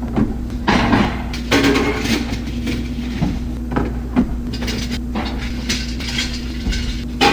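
Irregular clanking and knocking of hard objects being handled, over a steady low mechanical hum.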